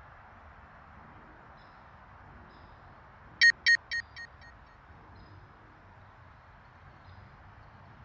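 A bright chime sound effect rings about three and a half seconds in, repeating four times in quick succession with each ring fainter, like a fading echo. A steady faint hiss runs underneath.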